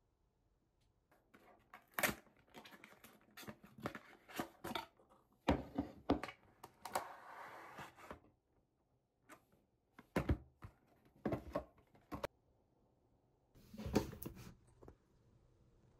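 Paperboard product boxes being handled and opened on a countertop: a run of light taps, clicks and papery rustles, busiest in the first half, with a few sharper knocks later on.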